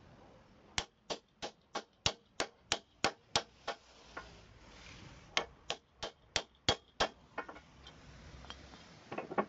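Sharp metal knocks, about three a second, as a steel pipe over the shaft drives a ball bearing down onto a 5.5 kW electric motor's rotor shaft. There are ten blows, a pause, then six more.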